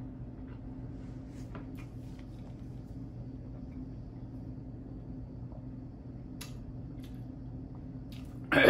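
Faint sips and soft clicks of drinking milk from a glass over a steady low hum, then a loud cough breaks out near the end, from the burn of the spicy noodles.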